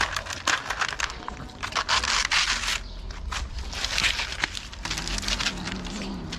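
Cats eating close up, with quick clicks and crunches of chewing kibble and meat, mixed with the crackle and scrape of thin plastic food trays handled on paving stones.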